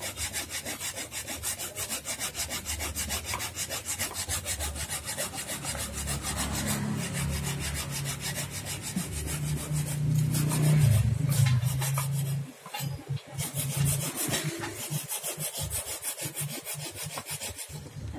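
Fresh coconut flesh grated by hand on a flat metal grater over a stainless steel bowl, for coconut milk: quick, even rasping strokes. In the second half, a knife chopping peanuts on a wooden board.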